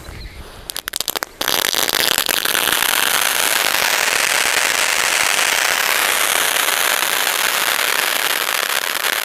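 Chandrakala ground fountain firework (anar-type) burning: a second or so of sputtering crackles, then about a second and a half in it catches fully and sprays sparks with a steady hiss.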